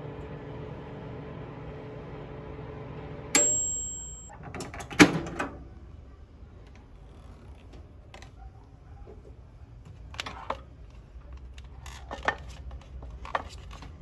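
Microwave oven with a dial timer humming as it runs, then shutting off with a bell ding about three seconds in. Its door is opened with a loud clunk a second and a half later, followed by a few light knocks as the paper cup of fries inside is handled.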